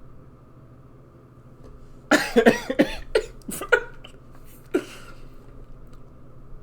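A man coughing: a quick run of loud coughs about two seconds in, then one more cough about a second later.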